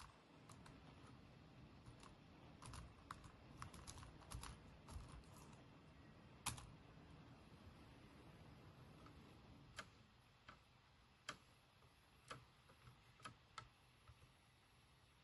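Faint, irregular clicks of typing on a laptop keyboard. A flurry of keystrokes comes a few seconds in, one sharper click around six seconds in, then single key presses about once a second.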